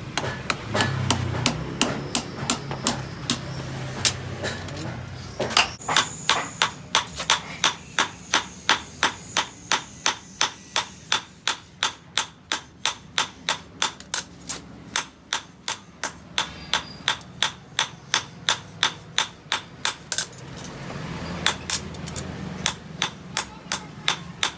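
Steady hand-hammer blows on steel while a knife blade is being forged, about three to four strikes a second. The blows thin out early on and pause briefly near the end before starting again.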